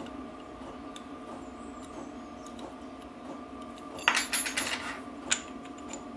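Steel gearbox parts of a BSA B25 clinking as they are handled on the bench: a quick cluster of metallic clinks about four seconds in and a single click about a second later, over a steady faint hum.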